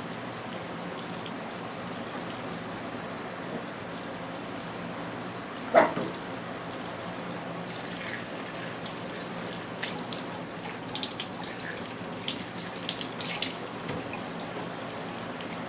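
Kitchen faucet running steadily into a stainless sink while hands rinse under the stream. A single brief sharp sound stands out about six seconds in, and small irregular splashes and patters come through in the second half.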